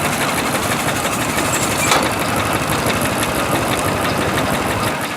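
Half-scale Case 65 steam traction engine running, its exhaust giving a quick, steady beat, with one sharp crack about two seconds in.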